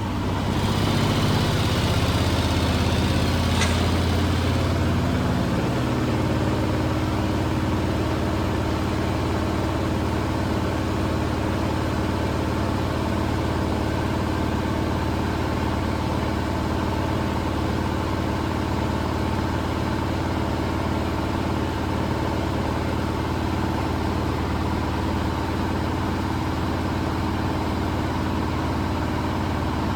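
Miele W1 Professional washing machine speeding up in its final spin: a loud machine hum comes in suddenly, its pitch climbs for the first few seconds, then it settles into a steady high-speed spin.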